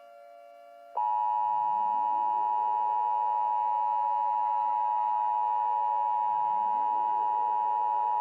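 Emergency Alert System attention signal: two steady tones sounded together, coming in about a second in after a moment of faint hum. It is the alert tone that announces an emergency broadcast message.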